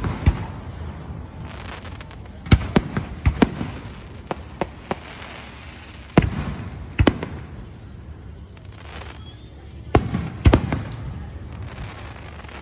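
Aerial fireworks bursting: irregular sharp bangs, with a quick run of about six reports a few seconds in and louder single booms later on.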